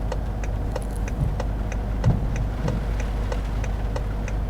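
A car's indicator ticking evenly, about three clicks a second, over the low steady hum of the car's engine.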